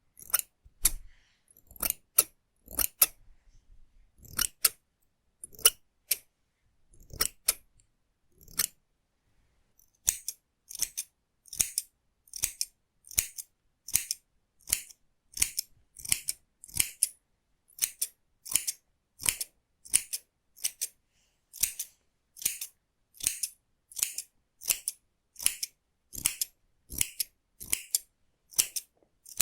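Hair-cutting scissors snipping hair in close, crisp strokes. They come unevenly at first, pause briefly, then settle into a steady rhythm of about one and a half snips a second.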